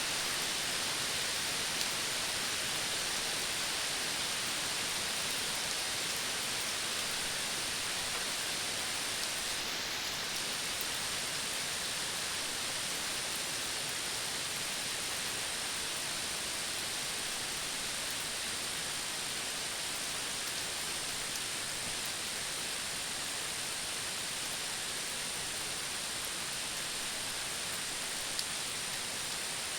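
Tropical forest ambience: a steady, dense hiss with a constant high-pitched band running over it, which drops out briefly about a third of the way through.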